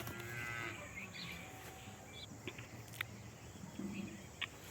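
Rural outdoor ambience with birds chirping in short high calls, and two sharp clicks, one about three seconds in and one near the end.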